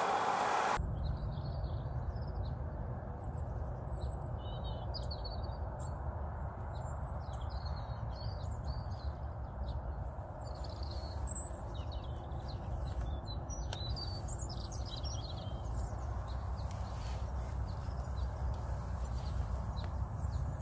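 Small songbirds chirping and singing on and off, over a steady low rumble. A short hiss cuts off abruptly within the first second.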